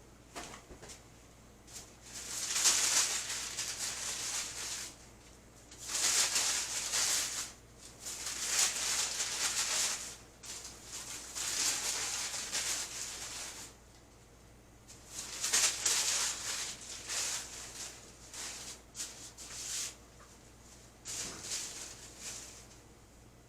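Rustling handling noise in irregular bursts of one to three seconds, with quieter gaps between, like material being shuffled or shaken by hand.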